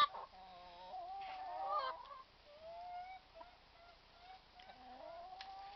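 Domestic hens making quiet, drawn-out calls: a longer call in the first two seconds, then shorter, fainter ones, the grumbling of hens that are cross.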